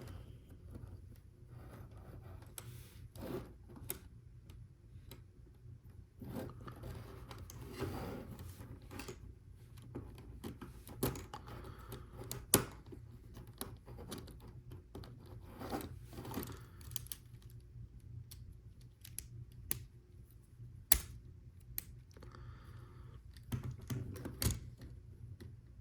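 Plastic Lego Technic pieces being handled and pressed together: scattered small clicks and snaps with patches of rustling, two sharper clicks standing out, one about halfway through and one later.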